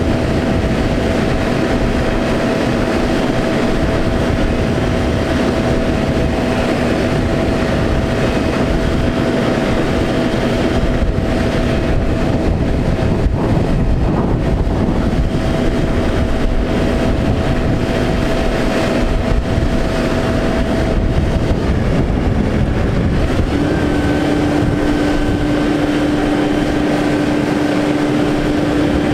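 Cummins ISX diesel engine running steadily, driving the Altec crane's hydraulics as the telescopic boom is raised and extended, with a thin steady hydraulic whine over the engine. The whine drops out about 21 seconds in, and a different whine at another pitch starts about two seconds later.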